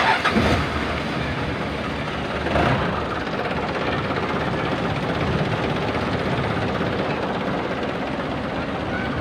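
Baby bus engine cranked by its freshly repaired starter and catching, then running steadily. It comes in loud at the start and surges again about two and a half seconds in. The starter, which would not engage before because of a failed solenoid, now turns the engine over.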